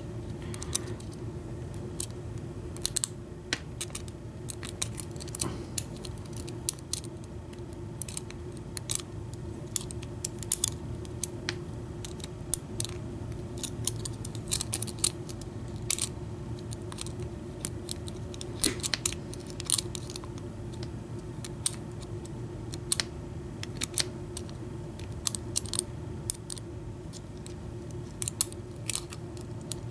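Peterson hook pick and tension wrench working the pin-tumbler cylinder of an Ace Hardware padlock with a Yale keyway, giving irregular small metallic clicks and scrapes several times a second. A steady low hum runs underneath.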